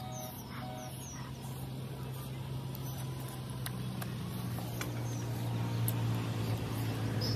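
A motor engine running steadily as a low hum, growing gradually louder, as of a vehicle drawing nearer. Faint bird chirps come early on.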